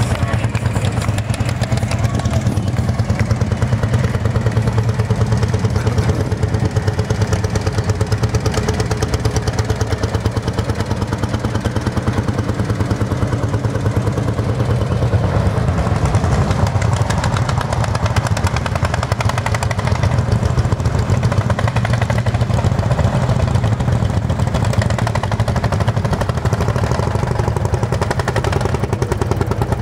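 Single-cylinder two-stroke Lanz Bulldog tractor engine running with a steady, rapid thumping beat.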